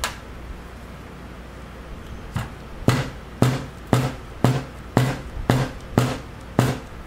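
A Gresen hydraulic control valve body being knocked against the bench: nine dull knocks in a steady rhythm of about two a second, after a single knock at the start.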